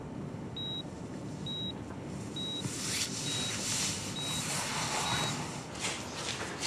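Bedside patient monitor beeping in a hospital room: a short, high beep about once a second, six times, fading out after about five seconds. A soft rushing sound swells in the background in the middle.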